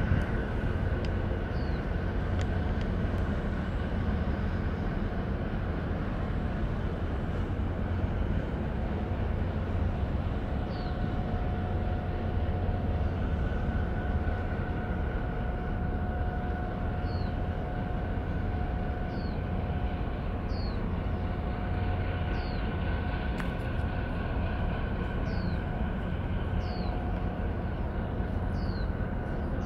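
Steady low rumble of a large container ship's engines, heard from the shore as it comes into harbour. A faint steady hum sits over it, and short high falling chirps recur every second or two.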